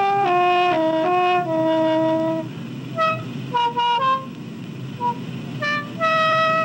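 Khaen, the Thai bamboo free-reed mouth organ, being played: a few held notes stepping downward, then short separated notes at changing pitches, ending on one held note.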